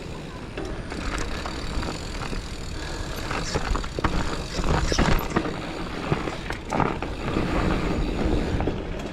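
Mountain bike riding a dirt trail: a steady rush of tyre and wind noise with frequent knocks and rattles from the bike over bumps.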